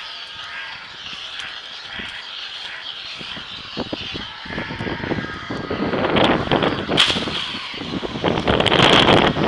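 Leaves and palm fronds rustling and scraping loudly against the microphone while pushing through dense undergrowth, starting about halfway through and loudest near the end; before that only a steady high hiss.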